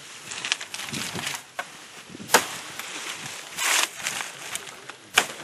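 Dry palm fronds rustling and crackling as they are handled and pressed onto a tiki hut's pole frame, with a few sharp knocks, the clearest about two seconds in and near the end.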